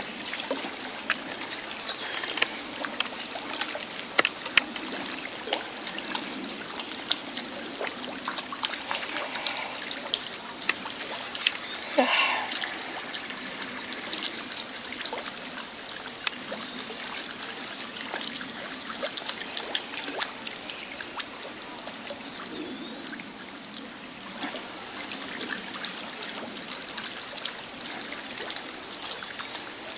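River water trickling and babbling steadily, with many small splashes and drips. A brief louder sound with a changing pitch comes about twelve seconds in.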